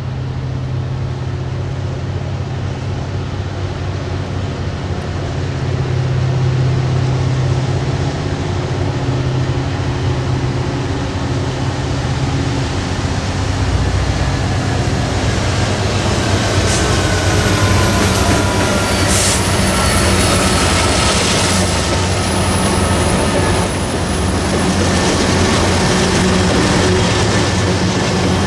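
Union Pacific diesel freight locomotives approach and pass close by, their engines running with a low steady drone that grows louder. Thin, high squealing tones join from about halfway, and the tank cars start rolling past near the end.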